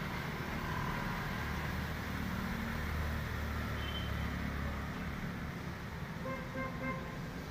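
Steady low rumble of a passing motor vehicle, swelling in the middle, with a few short faint high tones.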